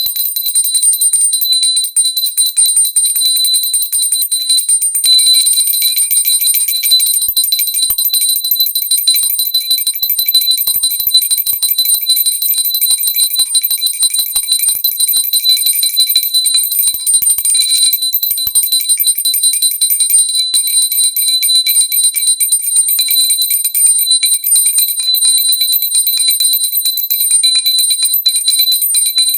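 Pooja hand bell rung continuously, its clapper striking many times a second so that the high ringing tones run together without a break.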